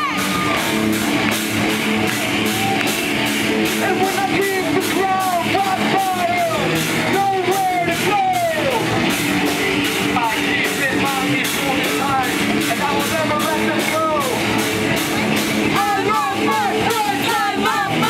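Pop-punk band playing live: electric guitars, bass and a drum kit keeping a steady beat, with a sung vocal line over them.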